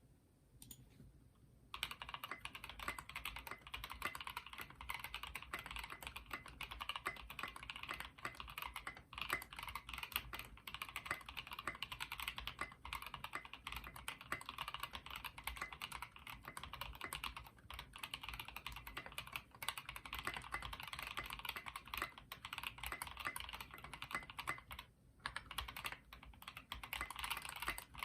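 Continuous typing on a custom HHKB-layout mechanical keyboard (CableCarDesign Prophet) with Dogikon switches with cream stems lubed with Tribosys 3204, a polypropylene plate and SA-profile keycaps: a fast, steady run of keystroke clacks starting about two seconds in, with a brief pause near the end.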